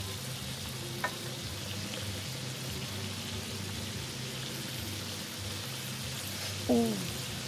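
Sliced beef and bitter melon frying in a nonstick pan, a steady light sizzle. A faint click about a second in, and a brief voice-like sound near the end.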